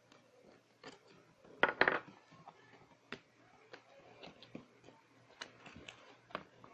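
Packaging of a toy box being handled and opened by hand: a short loud burst of crackling about one and a half seconds in, then scattered small clicks and taps.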